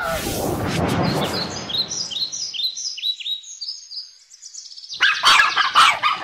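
A loud burst of noise fades over the first two seconds. Songbird chirping follows, short quick downward chirps about three or four a second, growing louder and busier near the end.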